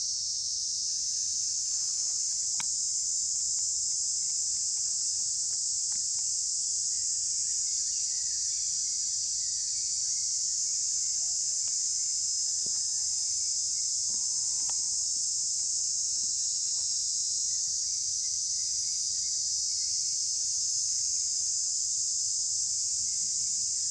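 Steady, high-pitched drone of an insect chorus, unbroken throughout, with a few faint clicks.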